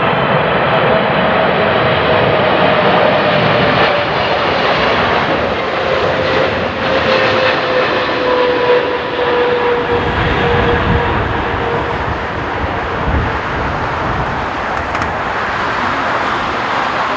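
Boeing 777-300ER's GE90 turbofan engines passing close on final approach: a loud jet roar with a whine that falls slowly in pitch as the airliner goes by, giving way to a lower rumble in the second half.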